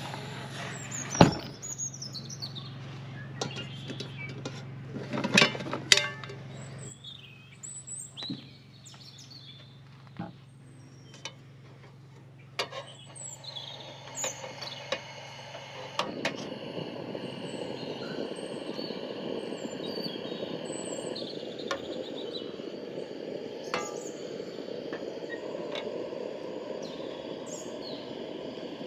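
Birds chirping over scattered knocks and clicks. A low steady hum stops about seven seconds in, and a steady rushing noise starts about halfway through.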